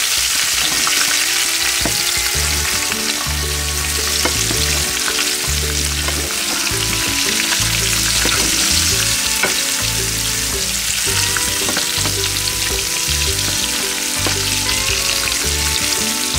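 Spring rolls shallow-frying in hot oil in a pan: a steady, dense sizzle with scattered crackling pops, as metal tongs turn the rolls in the oil.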